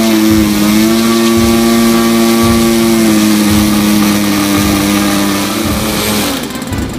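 Small model-aircraft engine with a wooden propeller running on the ground just after being started, a steady high-pitched buzz. Its pitch drops slightly about three seconds in, and the engine sound drops away about six seconds in.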